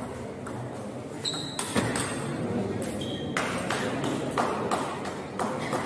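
Table tennis rally: the ball clicking sharply off bats and table in quick succession, with a couple of short high squeaks. The rally ends partway through, and a run of quick taps follows.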